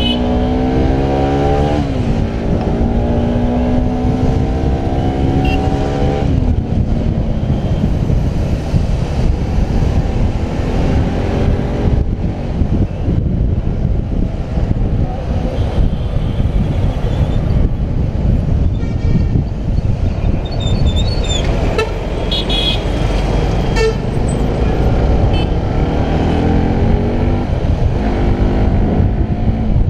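Bajaj Pulsar 200NS motorcycle's single-cylinder engine accelerating through the gears. Its pitch climbs, then drops at a shift about two seconds in and again about six seconds in. Steady wind and road noise fill the middle, with a few short horn toots around two-thirds through, and the engine climbs again near the end.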